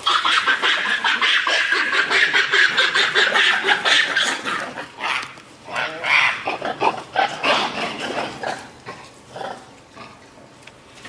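Japanese macaques screaming: a sudden, loud run of rapid shrill squeals that dies down after about five seconds into scattered calls.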